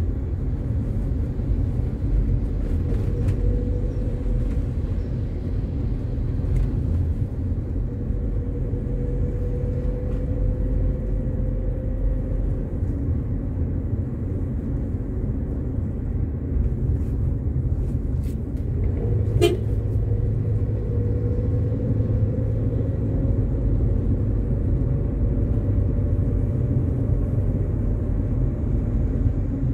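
A car driving on a city street: a steady low rumble of engine and tyres, with a faint whine that twice slowly rises in pitch as the car gathers speed. A single short, sharp sound comes about two-thirds of the way through.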